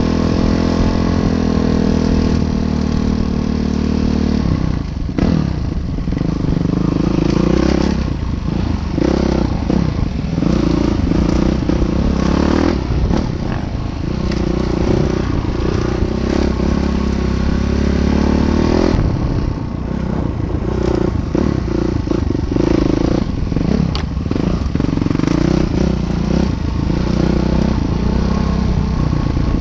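Train crossing a railway bridge: a steady engine drone at first, then from about five seconds in a continuous clatter and scraping of wheels on the rails over the low drone.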